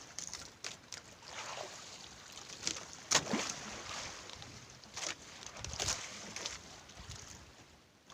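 Irregular splashing and rustling bursts of water and handling noise at a small fishing boat, with wind on the microphone. The loudest burst comes a little past three seconds in.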